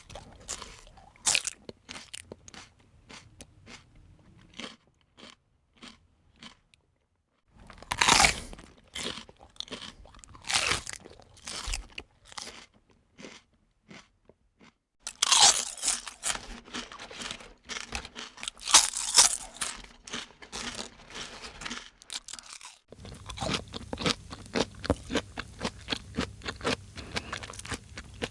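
A person biting and chewing crunchy food, heard close up: rapid sharp crunches in four runs, each broken off by a brief silence, with the loudest crunches at the start of the second and third runs.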